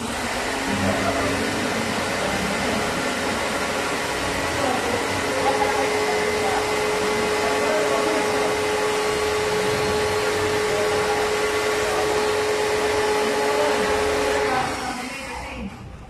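Electric pressure washer running steadily, spraying water into a split-type air conditioner's indoor unit to clean it. A steady whine joins about five seconds in, and the machine stops shortly before the end.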